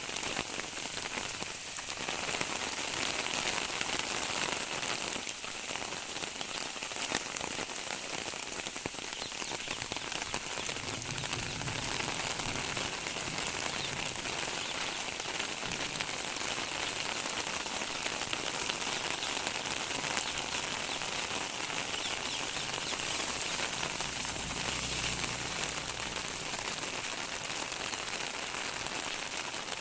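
Steady rain falling and pattering on surfaces, an even hiss with scattered sharper drop ticks.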